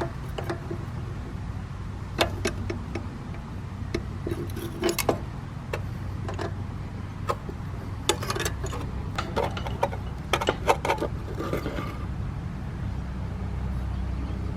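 Small metal clinks and ticks in irregular clusters as a wrench works the tubing nuts and thermocouple fitting on a water heater's gas burner control, over a steady low hum.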